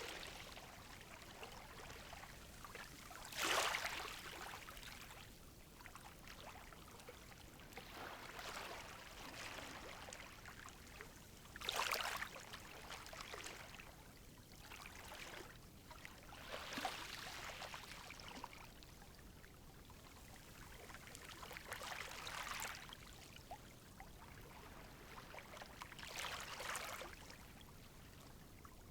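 Calm sea waves washing gently onto a shore, a soft swell of surf about every four to five seconds with a quiet hiss of water between.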